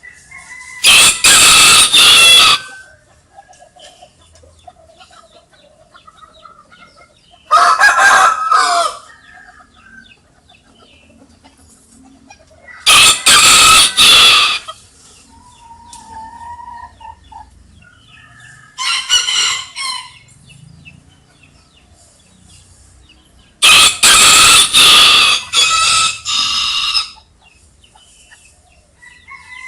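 A rooster crowing five times, about every five to six seconds. Each crow is loud and lasts one to three seconds; the fourth is quieter and the last is the longest. Hens cluck softly between the crows.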